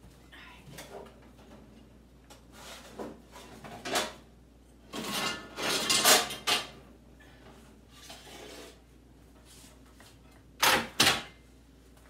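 Kitchen clatter as a countertop toaster oven's door and rack are handled and a baking dish is fitted in: scattered knocks, a longer run of scraping and clatter about five seconds in, and two sharp, loud clacks close together near the end.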